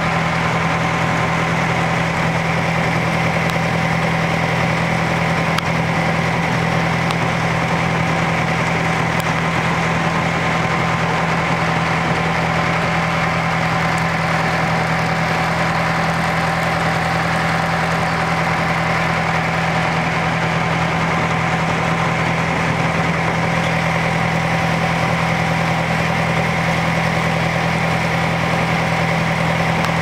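Motorboat engine running steadily at a constant speed, heard from on board, with an unchanging hum.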